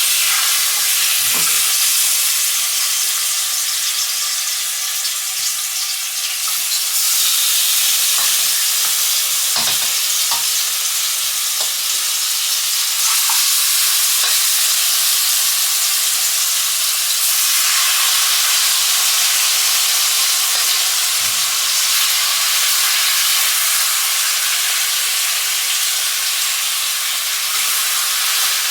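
Food sizzling as it fries in a pan, a steady loud hiss, with a few light knocks from a utensil stirring it.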